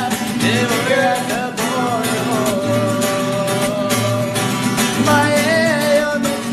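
Pop song playing: a wavering lead melody over a steady beat and a repeating bass line.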